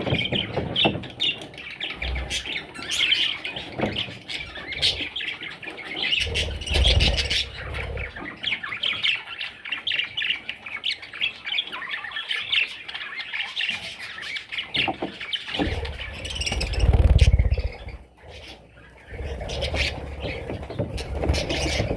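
Budgerigars chattering and squawking in a rapid run of short calls, pausing briefly about eighteen seconds in. Low rumbles come twice, around seven and seventeen seconds in.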